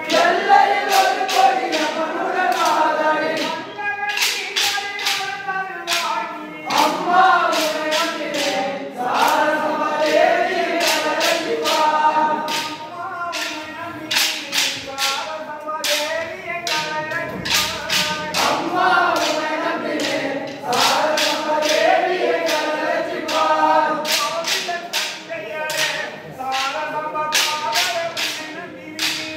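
A group of men singing a folk song together, with the sharp clicks of kolattam sticks struck in a rhythm, coming in quick clusters.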